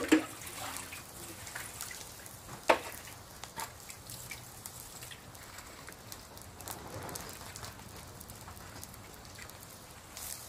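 Water dripping and small splashes in a metal pot of freshly washed fish, with scattered small clicks. Two sharp knocks, one at the very start and another under three seconds in, are the loudest sounds.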